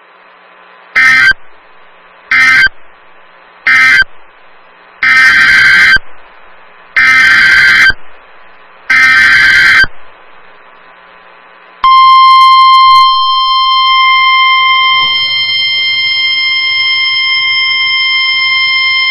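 Emergency Alert System SAME data tones on NOAA Weather Radio: three short screeching bursts ending the first warning, then three longer bursts of header code for the next warning. About twelve seconds in, the steady, loud 1050 Hz weather-radio warning alarm tone starts and holds.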